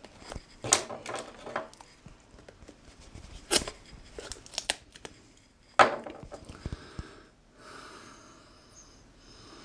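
Small cardboard product box handled and turned over in the hands: rubbing and crinkling with a few sharp taps, the loudest about six seconds in. A faint steady noise follows in the last two seconds.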